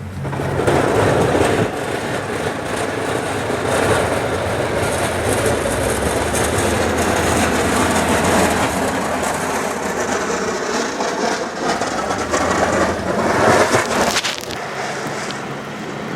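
Heavy vehicle running, a steady low engine drone under a loud rushing, grinding noise that eases off about fourteen seconds in.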